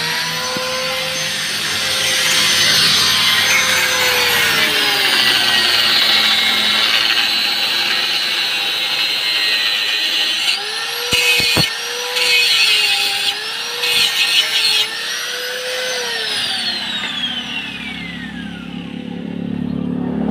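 Electric angle grinder running at full speed and cutting into steel. The whine sags in pitch each time the disc bites, with bursts of harsh grinding about halfway through, then the motor winds down near the end.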